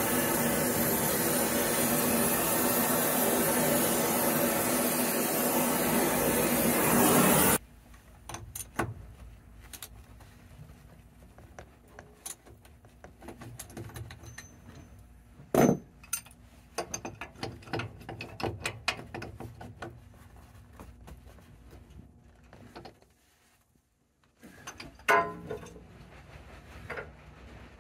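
Oxy-fuel rosebud heating torch burning with a loud steady hiss as it heats a seized nut, cutting off suddenly about eight seconds in. After that come scattered clinks and knocks of tools on metal, with one sharp knock near the middle.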